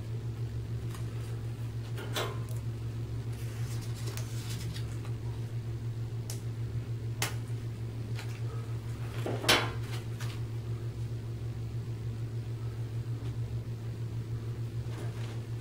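A few sharp clicks and clinks of metal surgical instruments being handled, the loudest about nine and a half seconds in, over a steady low hum.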